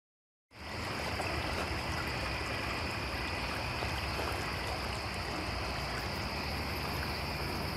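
Crickets and other night insects calling steadily in several high-pitched bands over a steady hiss. The sound starts abruptly about half a second in.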